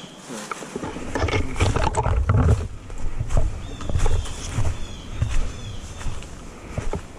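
Rustling, crunching and irregular thumps of a player moving through woodland brush and leaves close to a body-worn microphone, starting about a second in.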